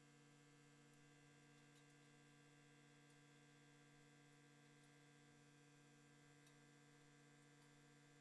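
Near silence with only a faint, steady electrical hum.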